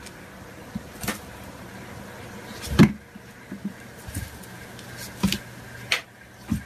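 Several dull thumps and knocks of kittens jumping and pouncing on a wooden floor, the loudest about three seconds in, over a faint steady hum.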